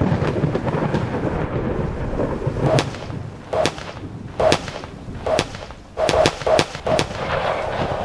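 A series of about eight sharp bangs in quick, irregular succession, two of them almost together, over a rumbling background noise.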